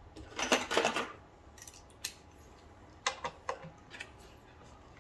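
Metal hand tools clicking and clattering against each other and the mower's bolts: a short burst of rapid metallic clicking in the first second, then several single clicks.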